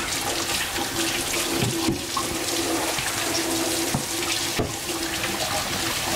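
Kitchen tap running into the sink while hands are washed under it: a steady rush of water with a low hum through it and a few light knocks.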